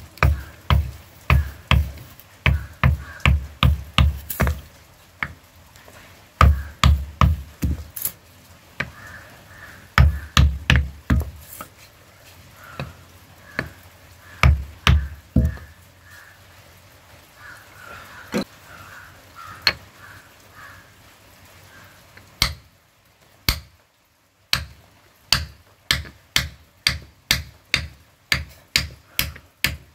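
A knife's red-hot tang being driven down into a wooden handle that rests on a block: runs of heavy, dull knocks, several a second, broken by short pauses. In the last several seconds come lighter, sharper taps at about two a second.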